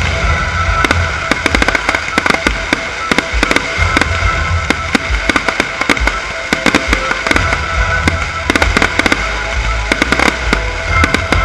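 Fireworks display: a dense, continuous barrage of firework bangs and crackling bursts, many a second, over music.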